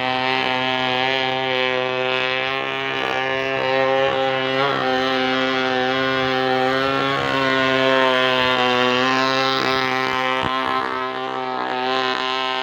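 Small brush-cutter engine driving a radio-controlled boat, running steadily with a droning hum whose pitch wavers slightly a few times.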